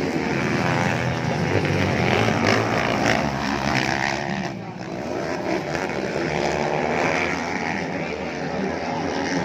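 Several motocross bikes racing together, their engines revving hard with overlapping notes that rise and fall as the riders accelerate up a dirt hill.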